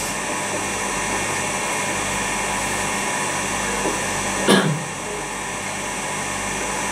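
A steady machine hum and hiss, made up of several constant tones. A brief voice sound comes about four and a half seconds in.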